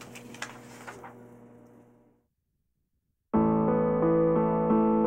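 Faint room tone with a low steady hum and a couple of soft clicks fades out into a moment of silence. About three seconds in, piano music starts: held chords that change roughly every half second.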